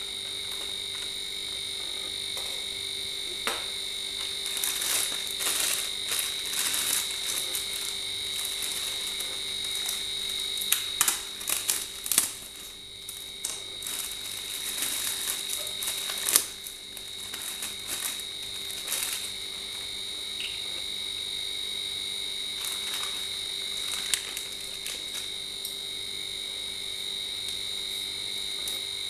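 Clear plastic packaging crinkling and rustling in irregular crackles as the parts of a condenser microphone kit are unwrapped by hand, loudest around the middle. A steady high-pitched background tone runs underneath.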